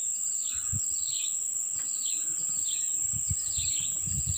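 Steady high-pitched insect drone with a bird repeating short falling calls about every half second, and a few faint low bumps.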